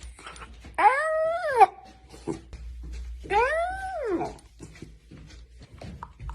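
A puppy yawning out loud twice, each yawn a squeaky whine that rises and then falls in pitch.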